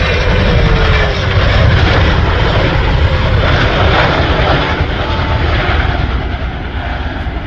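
Large helicopter running loud and steady, its rotors and engines giving a deep rumble, growing a little quieter near the end.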